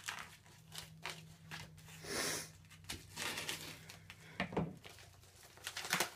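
Scissors cutting through a paper mailing envelope, with paper crinkling and rustling as it is handled and pulled open: irregular snips and crackles, with a longer rasp about two seconds in.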